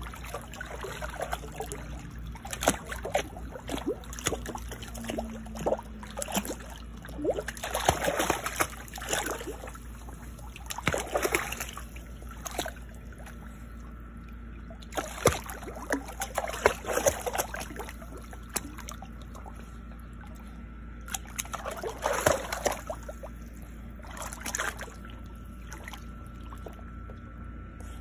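Shallow water in a plastic kiddie pool sloshing and splashing in irregular bursts as a small dog wades through it, over a steady low rumble.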